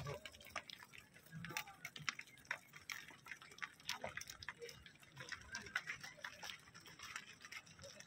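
Faint, irregular clicks and crackles of cattle hooves and people's feet on dry, straw-covered ground, with a few faint distant voices.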